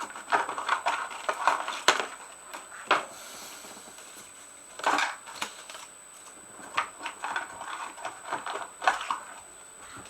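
Small objects being handled on a workbench: scattered clicks, taps and short rustles, spaced irregularly.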